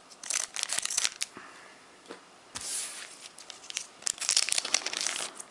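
Foil booster pack wrapper being torn open and crinkled: bursts of crackling in the first second or so, a short rip about two and a half seconds in, and more crinkling from about four seconds in.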